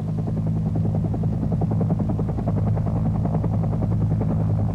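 Helicopter in flight: a fast, even beat of rotor blades over a steady low engine hum.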